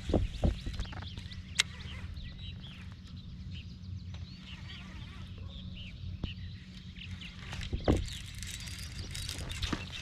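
Small birds chirping repeatedly over a steady low rumble, with a few sharp knocks about half a second in and again near the end.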